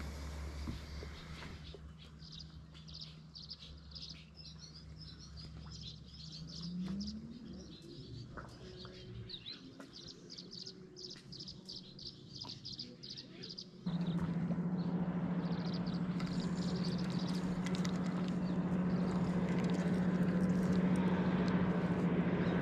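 Small birds chirping in rapid repeated calls. About two-thirds of the way through, a steady low motor drone comes in suddenly and carries on, louder than the birds.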